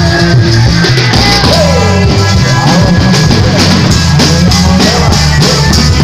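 Loud amplified band music played through large speakers. A drum kit with cymbals keeps up steady hits over a heavy bass, and a gliding melody line runs above them.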